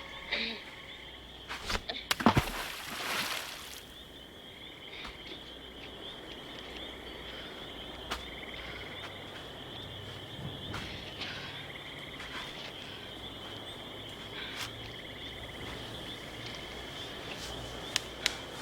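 Night ambience of insects chirping in a steady high drone. About two seconds in, a few sharp knocks come with a short rushing burst of noise.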